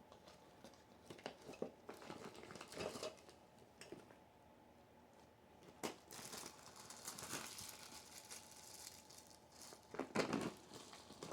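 Packaging being handled: irregular crinkling and rustling with a few small clicks and knocks, a sharp click about six seconds in followed by a longer rustle, and the loudest bout of rustling near the end.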